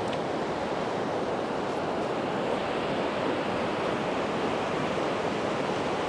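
Sea surf washing on a beach, a steady rushing noise, with some wind.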